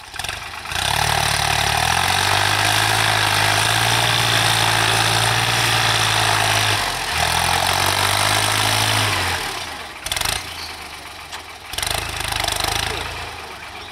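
New Holland TT55 tractor's diesel engine running steadily under load as it pulls a tine cultivator through dry soil. There is a brief dip about seven seconds in, and the engine is quieter from about nine seconds in.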